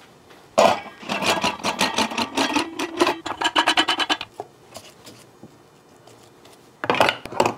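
Rapid metallic clicking and clatter as the parts of a stainless steel vertical sausage stuffer are handled and fitted together, followed by a pause and a few knocks near the end as it is loaded with meat.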